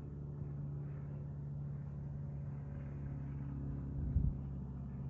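Cessna 150F's Continental O-200 four-cylinder engine and propeller droning steadily as the plane flies over. A brief thump about four seconds in.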